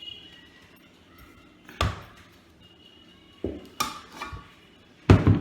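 Kitchen work sounds: a few sharp knocks on a worktop, about four in all, with the loudest near the end.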